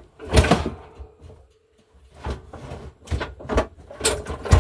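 Irregular knocks, bumps and clatter of hard objects being shifted and dragged about, the loudest about half a second in and near the end.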